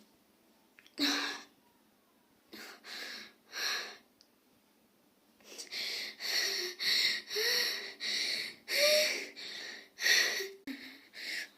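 A girl coughing and wheezing: a few breathy bursts, then a rapid run of about nine, roughly one every half second, in the second half.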